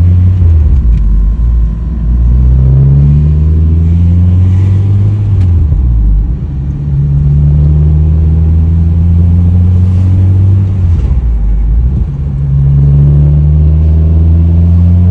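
Loud bass-heavy music: deep sliding bass notes that rise in pitch and then hold, repeating in phrases of about five seconds.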